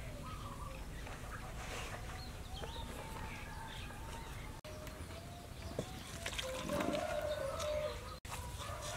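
Chickens clucking and small birds calling over a low steady rumble, with a louder drawn-out call about seven seconds in.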